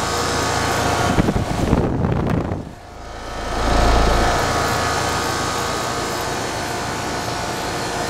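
2007 5-ton Rheem Classic heat pump outdoor unit running in cooling mode: its condenser fan and Copeland scroll compressor give a steady hum. An uneven low rumble comes about a second in, the sound dips briefly near the middle, then a deep hum swells back up.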